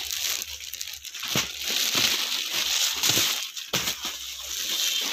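Clear plastic packaging crinkling and crackling in irregular bursts as packed suit sets are handled and moved.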